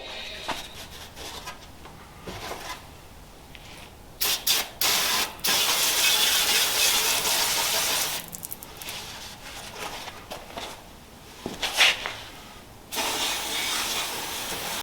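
Aerosol spray can sprayed in several hissing bursts, short ones and one longer spray of about two and a half seconds, coating fresh spot welds.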